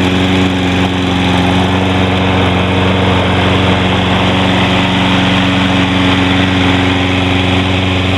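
Toro Recycler walk-behind lawn mower's small four-stroke engine running steadily at an even speed.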